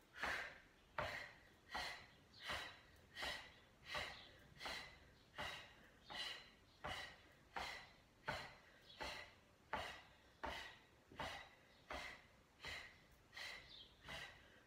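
A woman breathing hard in a steady rhythm, a short audible breath about every two-thirds of a second, from the exertion of a fast Pilates exercise.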